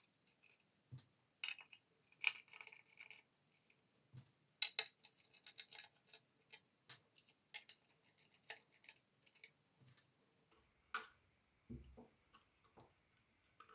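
Faint, irregular clicks and light taps of the light's opened housing and small circuit board being handled on a workbench, with a few duller knocks.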